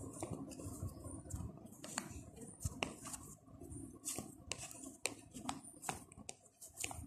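Slime being kneaded and squeezed by hand in a plastic bowl: irregular sticky clicks, pops and crackles as it stretches and presses.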